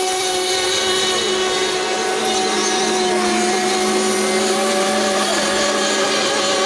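High-pitched engine whine of radio-controlled offshore (FSR-O class) model racing boats with 7.5 cc two-stroke engines running flat out across the water. It is a steady, loud drone with more than one held tone, as from more than one boat at once.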